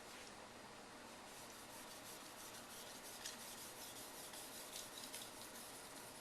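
Steel knife edge stroked back and forth on a 1K waterstone coated with a little mud, a faint gritty rasp with each stroke. The strokes become regular about a second in.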